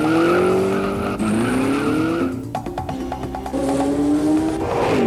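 Race car engine accelerating hard, its pitch climbing in repeated sweeps of about a second each, with music playing underneath.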